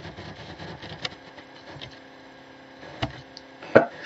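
Computer keys clicking a few times as text is deleted, the sharpest click near the end, over a low steady hum.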